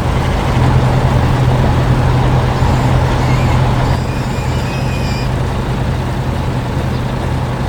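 Heavy diesel machinery engine running steadily, with a strong low drone.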